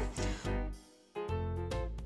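Background music that starts about a second in, after a brief near-silent gap, with a steady run of instrumental notes.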